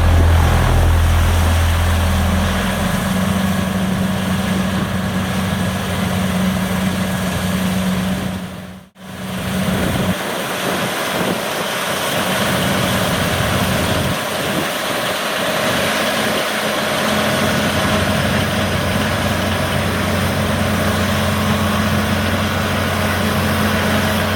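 Claas Lexion 8900 combine harvester running steadily while threshing wheat: a constant low engine drone over machinery noise. The sound cuts out for an instant about nine seconds in and carries on.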